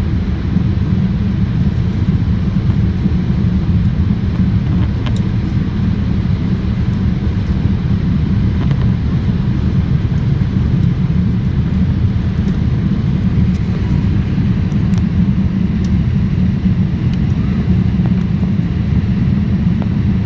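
Airliner cabin noise in flight: a steady low roar of the jet engines and rushing air, even throughout.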